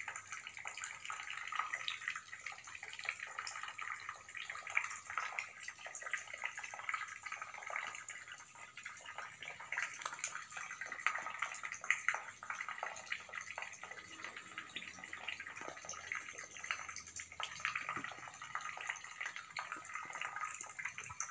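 Swiftlets twittering and clicking continuously, a dense, steady chatter of many short high chirps.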